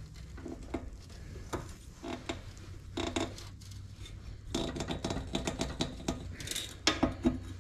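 Pry bars levering at a steel bearing race in an Allis-Chalmers B's bearing housing: many small metal clicks and scrapes, busier about three seconds in and again past the middle, as the race begins to work loose. A steady low hum runs underneath.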